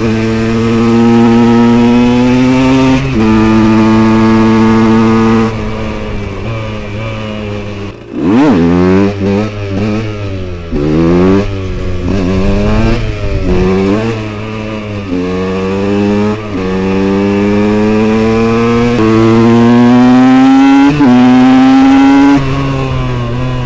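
KTM 125 EXC two-stroke engine with an FMF Powercore 2 silencer, pulling hard through the gears: the pitch climbs and drops back at each upshift. About a third of the way in the throttle is shut and the engine is revved up and down several times in quick blips, then it pulls up through the gears again with rising pitch and several upshifts near the end.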